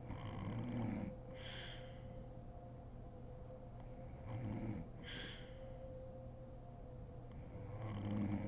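A woman snoring in deep sleep: three low snores about four seconds apart, near the start, about four seconds in and near the end, each followed by a short breathy hiss.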